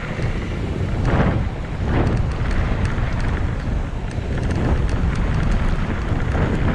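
Wind buffeting the microphone over the rumble of mountain bike tyres rolling on a hard-packed dirt trail, with brief louder rushes about one and two seconds in and near the end.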